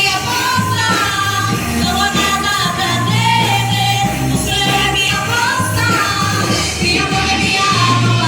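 Gospel worship song performed by a band with singing: a sung melody over steady bass notes and drums.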